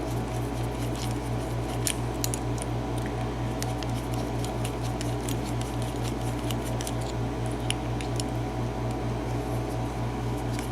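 Small metal clicks and scrapes of tools working on a brass cylinder lock while it is taken apart and its screws are backed out, over a steady low hum.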